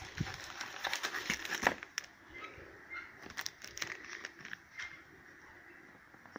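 Hands rummaging through a cardboard box of packaged items: rustling, crinkling and light knocks, busiest in the first two seconds, then scattered clicks.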